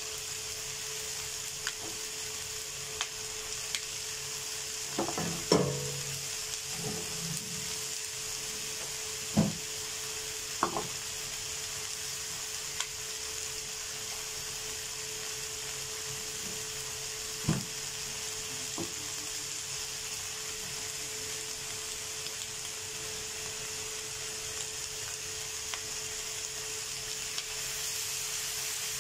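Chicken wing tips frying in a pan with a steady sizzle, under a steady hum. A few short knocks and taps from the pan and utensils come over it, the loudest about five seconds in.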